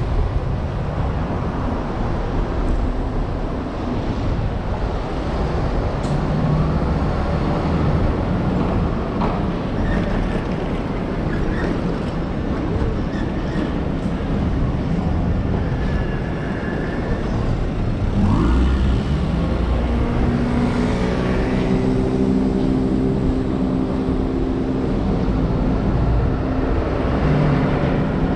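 Steady city street traffic noise. About two-thirds of the way through, a heavy vehicle's engine hum rises in pitch, then holds a steady tone for several seconds before fading near the end.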